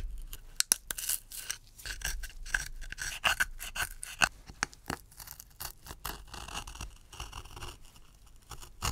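Glued paper lining being scraped and picked off the wood inside a vintage wooden straight-razor case: an irregular run of short, scratchy scrapes. The paper is firmly bonded to the wood, so it comes away only in small flakes.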